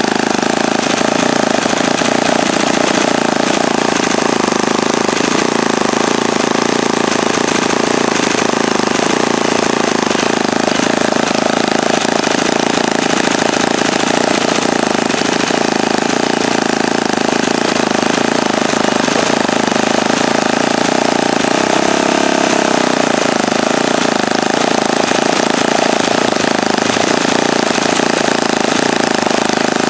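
OS FS-61 four-stroke glow model engine turning a wooden 13x6 propeller, running steadily at a fast idle of about 3,300 RPM. Its pitch dips and recovers once about 22 seconds in. The engine is still being broken in and is reluctant to settle into a low idle while its throttle stop and air bleed screws are adjusted.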